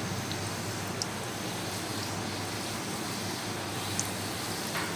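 Bhatura dough deep-frying in hot oil: a steady sizzle with a few faint pops.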